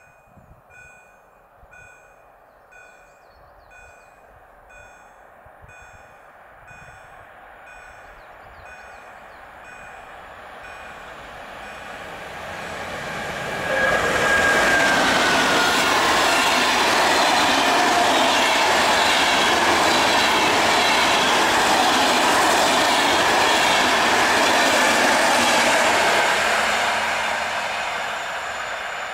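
A level-crossing warning bell dings about one and a half times a second. Then a PKP InterCity express hauled by an EU44 Husarz (Siemens EuroSprinter) electric locomotive passes at speed, a loud steady rush of wheels on rail lasting about twelve seconds that dies away near the end.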